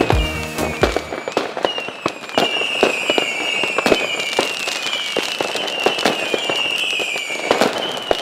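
Fireworks crackling and popping, with a short falling whistle about once a second. The background music stops about a second in.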